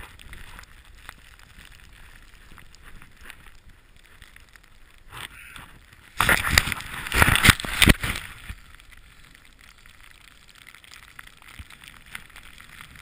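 Snowboard riding through deep powder: a soft hiss of snow under the board with light knocks, then a loud rushing noise for about two seconds in the middle.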